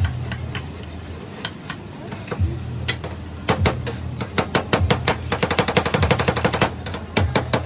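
Metal spatulas chopping and clacking on an ice cream cold plate, crushing the ingredients into the ice cream: scattered knocks at first, then rapid rhythmic clatter from about halfway through.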